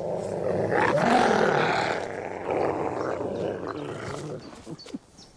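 Grey wolves snarling and growling, loudest in the first two seconds and dying away near the end, with a brief rising yelp-like note about a second in. It is the sound of tension over rank between pack wolves.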